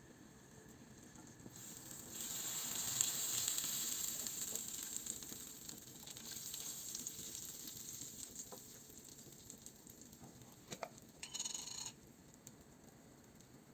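A sizzling hiss starts about two seconds in and slowly dies away over several seconds, like something hot sizzling in a pan. A short ringing note sounds near the end.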